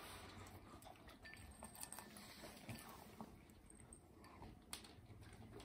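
Faint sounds of a Pomeranian puppy eating from a ceramic mug: soft chewing with scattered small clicks.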